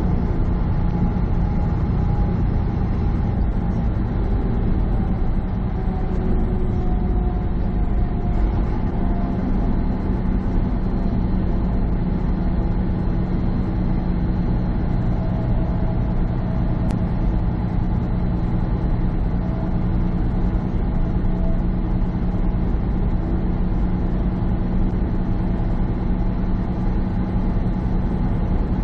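Semi truck's diesel engine and tyres in a steady drone at highway cruise, heard from inside the cab.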